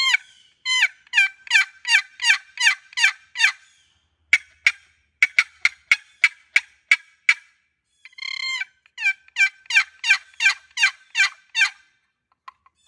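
Wooden turkey box call, made of walnut inlaid with maple and bloodwood and topped with a yellowheart lid, worked by hand to imitate a hen turkey. It gives a string of about ten falling yelps, then a quicker burst of short, sharp cutting notes about four seconds in, then another run of yelps near the end.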